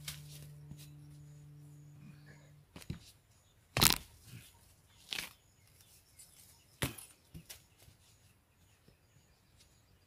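Hands digging wild potato tubers out of dry soil: a handful of scattered sharp knocks and cracks, the loudest about four seconds in, dying down to faint rustling in the second half.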